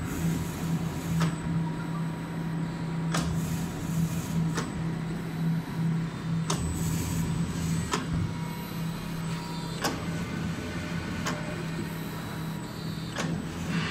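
Small wire-cut cookie depositing machine running: a steady motor hum, with a sharp mechanical click about every one and a half seconds as the depositor cycles through each row of nozzles.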